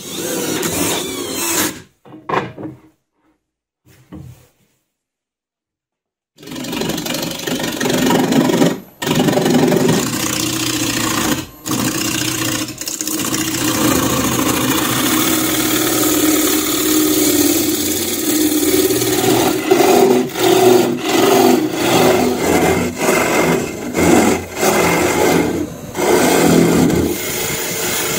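A cordless drill briefly drives screws through a chuck mounting plate into a log, then, after a few seconds' pause, a Record Power Coronet Herald wood lathe spins a wooden blank while a gouge cuts it. The turning runs steadily to the end, with several short breaks.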